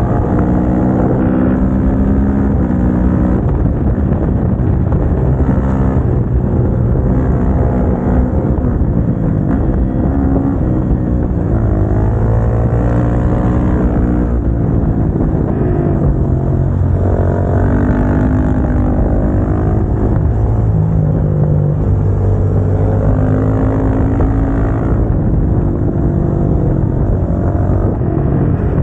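Motorcycle engine with an aftermarket exhaust, heard onboard while riding: the engine note climbs in pitch under acceleration and drops back several times, as with gear changes and easing off.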